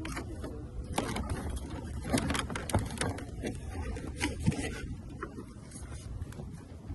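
Irregular clicks and knocks of things being handled, over a steady low rumble.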